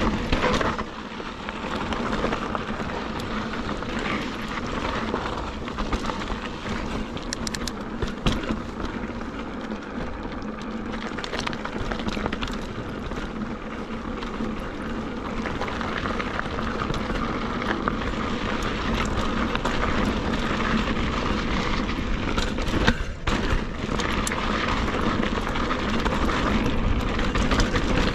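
Wind rumbling on an action camera's microphone over the rolling noise of mountain bike tyres on loose, rocky dirt singletrack, with a few sharp knocks as the bike hits rocks.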